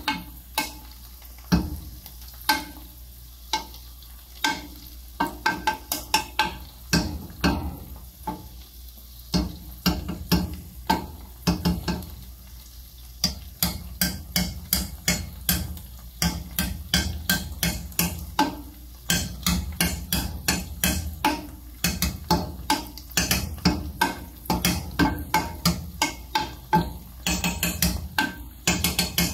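Wooden spoon stirring food in a stainless steel pot, scraping and knocking against the pot in quick irregular clusters with brief pauses, over a low sizzle of frying.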